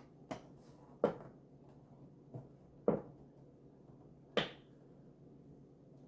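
About five sharp clicks and light knocks, spaced irregularly, from small model-kit parts and tools being picked up, handled and set down on a work surface.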